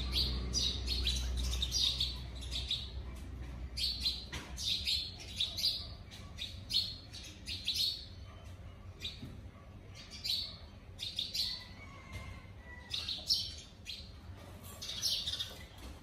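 Sparrows chirping in repeated quick clusters of short, high chirps, with brief pauses between clusters. A low rumble sits under the first two or three seconds.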